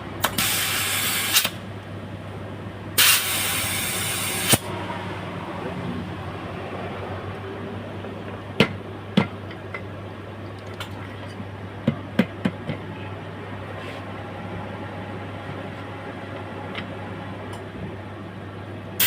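Compressed air hissing in two bursts of about a second and a half each, blown into a freshly mounted electric-bike tyre that will not hold air because its bead is not seating. Several light clicks and knocks follow.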